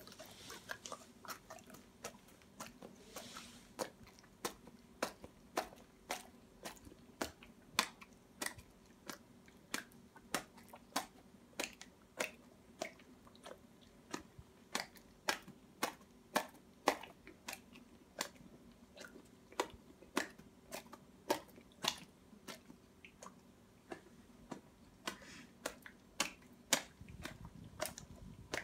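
Newfoundland dog smacking its lips and tongue over a mouthful of sticky peanut butter, a wet click about twice a second.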